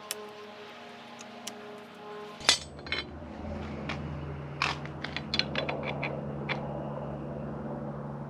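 Metal clinks and taps from a handguard bar-end mount and its expanding plug being worked into the end of a motorcycle handlebar. There is one sharp knock about two and a half seconds in, then a quick run of light clinks.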